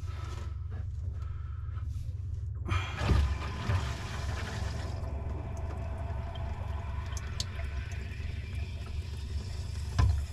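Water rushing and gurgling through a clogged drain line being flushed with pressurised water to force the clog loose, surging about three seconds in and then settling to a steadier rush, over a steady low hum.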